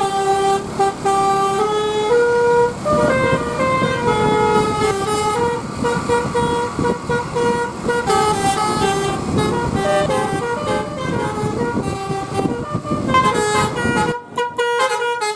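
Basuri 'telolet' multi-tone bus air horn playing a fast melody of changing notes over engine and road noise. The low rumble drops out about a second before the end while the horn notes continue.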